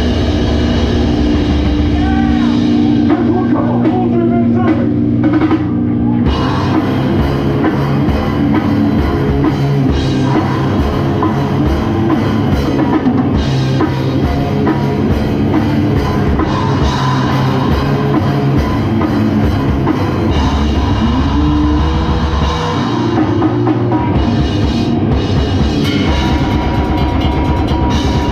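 Goregrind band playing loud, distorted guitar and bass over a pounding drum kit, with a held high note near the end.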